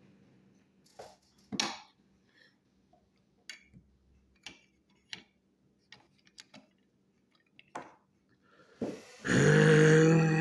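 A few light clicks and taps, then about nine seconds in a loud, low voice sound lasting over a second, a grunt or burp-like noise.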